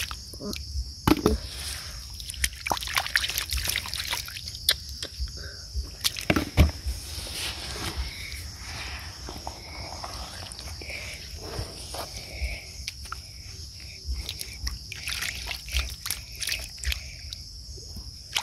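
Hands scooping and sloshing through shallow muddy water and wet sand while digging out snails, with many small irregular splashes and trickles. A steady high-pitched insect drone runs underneath.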